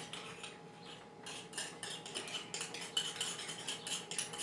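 A spoon scraping and clinking against a bowl in quick, repeated strokes while slime ingredients are scooped and mixed.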